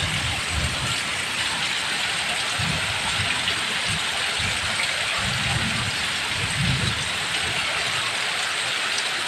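Heavy rain falling steadily, an even hiss, with short irregular low rumbles throughout.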